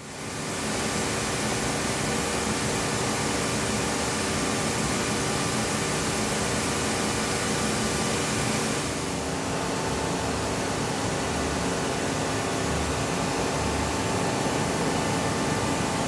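Haas VF-7/40 vertical machining center running: a steady mechanical hum and hiss with several fixed tones. About nine seconds in the hiss drops a little and a new, higher tone comes in.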